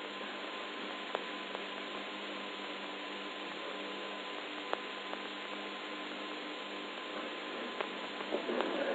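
Steady hiss and hum from the background of an old 1963 recording, with a faint steady tone and a few faint clicks.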